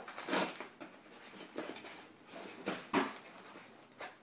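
Fabric straps being pulled loose and a cardboard box sliding out of a plastic carry case: a few short scraping, rustling bursts, the loudest about three seconds in, and a sharp click near the end.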